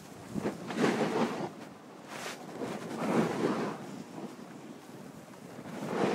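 Snowboard edge scraping and carving over packed snow through a series of turns, swelling three times, with wind rushing over the phone's microphone.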